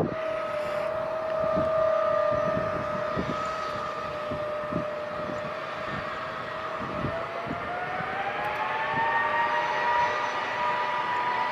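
Jet aircraft engines whining with a steady tone over a rumble. The whine rises in pitch about eight seconds in and then holds at the higher pitch.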